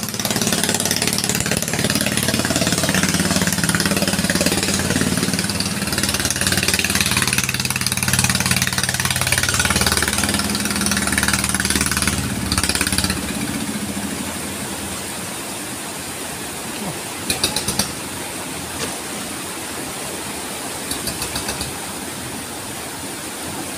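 A wooden river boat's engine runs hard against loud rushing floodwater in rapids; about halfway through the engine sound stops and only the rushing river remains, with a few brief sharp sounds near the end.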